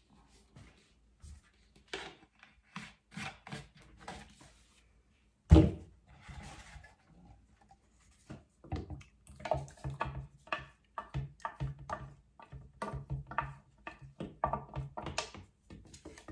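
Wooden stir stick knocking against the sides of a plastic pitcher as Floetrol and gloss varnish are stirred together, in a quick even rhythm of about two to three knocks a second from about nine seconds in. Before that come a few light clicks and one loud thunk about five seconds in.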